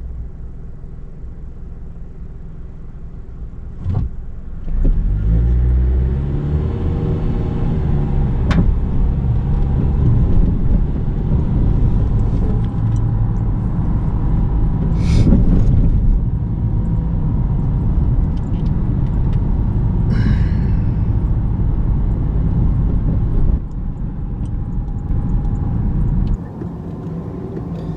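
Car driving: the engine pulls away about five seconds in, its pitch rising, then runs steadily with road noise, easing off near the end.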